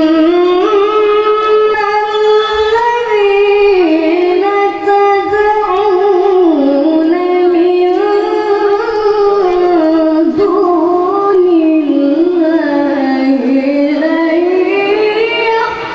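A boy's voice in melodic Quran recitation (tilawah), sung into a handheld microphone: one long unbroken phrase whose pitch winds up and down in slow ornamented turns.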